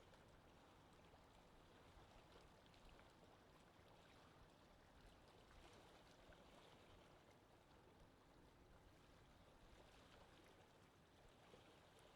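Faint underwater ambience: a steady, soft watery wash with scattered small clicks.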